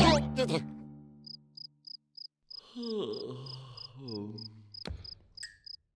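A sudden orchestral music hit that dies away, followed by crickets chirping: a faint high chirp repeated evenly about three times a second. This is the cartoon sound effect for a silent theatre. Low falling sounds run under the chirping in the middle, and a sharp click comes near the end.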